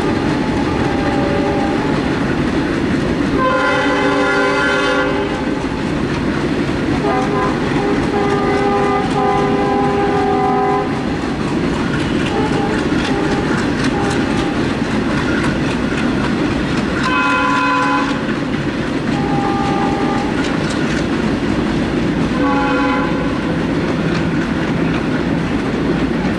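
Broad-gauge trains running past with a steady rumble and clickety-clack of wheels over rail joints. Diesel locomotive horns sound several times: a blast about four seconds in, a long one lasting about four seconds from around seven seconds, then shorter toots later.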